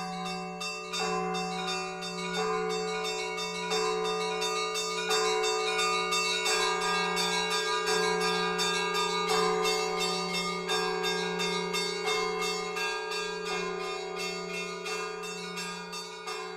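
Church bells pealing, many bells struck in quick succession over a steady low hum, slowly fading toward the end.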